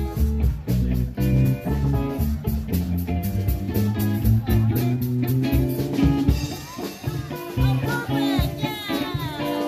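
Music with guitar and a steady drum beat.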